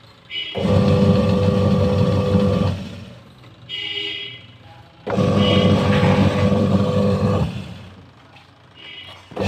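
Washing machine's newly fitted wash motor running in the wash cycle: it runs with a steady hum for about two and a half seconds, stops for a similar pause, then runs again, and starts once more at the very end. A short higher sound comes in the middle pause. The motor is working properly after the replacement.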